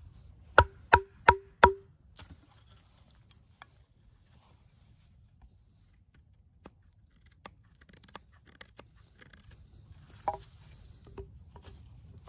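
Four quick, sharp strikes of a wooden baton on the spine of a 7-inch SK85 steel Bowie knife, each with a brief ring, driving the blade into a stick to cut a tent stake notch. After them come faint scattered clicks of the knife working the wood, and one more knock a little past ten seconds in.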